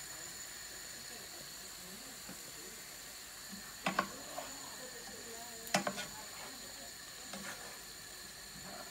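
Creamy vegetables sizzling quietly in a frying pan while a wooden spoon stirs them, knocking sharply against the pan a few times, loudest just before four seconds in and again near six seconds.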